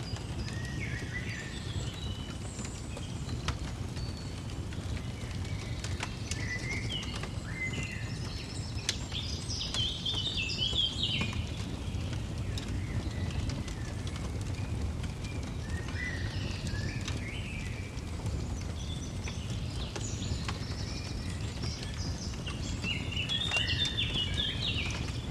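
Songbirds chirping and twittering in short phrases, with the scattered pops and clicks of a crackling wood fire over a low steady rumble.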